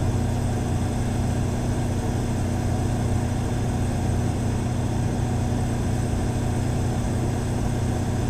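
Cummins Power Connect residential standby generator with the Level 2 sound enclosure, running at full load: a steady, even engine drone with a strong low hum.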